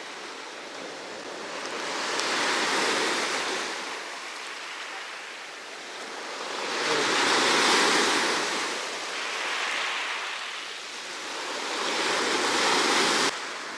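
Black Sea surf washing on the beach, a steady hiss that swells three times as waves break about five seconds apart, then cuts off abruptly near the end.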